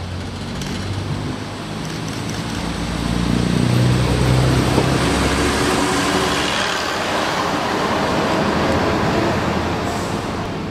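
BR Class 121 'Bubble Car' single-car diesel multiple unit passing through a station. The underfloor diesel engines' drone builds to its loudest about four to five seconds in, shifting in pitch as it goes by. Wheel and rail noise follows as the coach runs past and fades away near the end.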